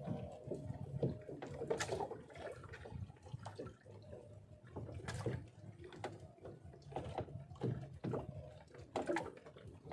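Sea water lapping and splashing, with scattered small knocks and clicks at uneven intervals.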